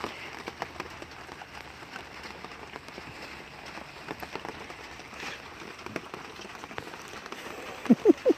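Light rustling and scattered ticking, like animals moving and scratching about in straw, with two short animal calls near the end.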